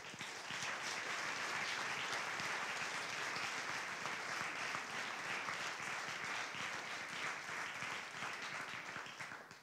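Audience applauding steadily, many hands clapping, fading out near the end.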